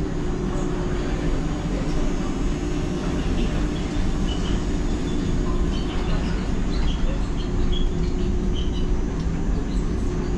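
Düsseldorf SkyTrain suspended monorail running: a steady low rumble with a constant hum.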